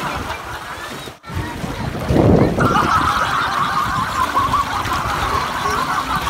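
Wind buffeting a phone microphone over small sea waves washing in the shallows, with a break about a second in and a stronger gust soon after. A dense jumble of distant voices sits behind it.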